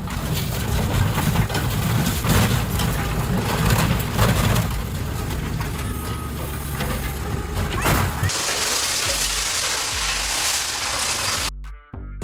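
Scrap handler excavator running, its engine rumbling, with repeated clanks and crashes of metal being handled. About eight seconds in, the engine rumble drops away, leaving a hissing, clattering noise that stops suddenly near the end.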